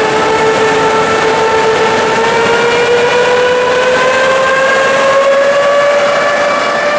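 EP2K electric passenger locomotive pulling away with its train: a steady whine from the drive, with overtones, rises slowly in pitch as it gathers speed, over the rumble of the moving train.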